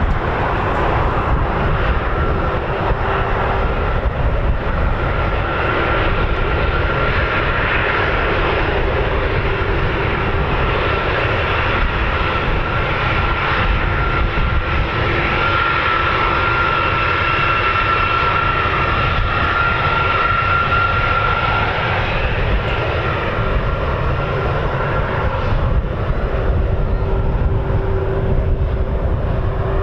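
Four CFM F108 turbofan engines of a Boeing RC-135W Rivet Joint at taxi power: a steady jet whine with a high tone, louder for several seconds about halfway through as the aircraft turns toward the listener, then easing as it turns away.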